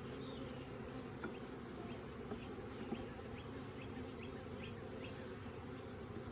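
Honeybee colony buzzing steadily around an open hive, a dense low hum of many bees, with a few faint ticks here and there.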